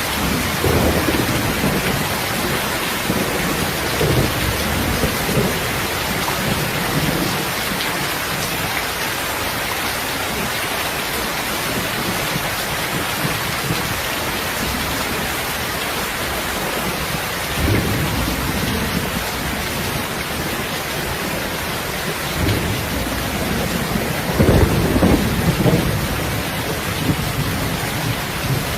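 Steady, even rain with low rolls of thunder rumbling in several times, the strongest swell coming near the end.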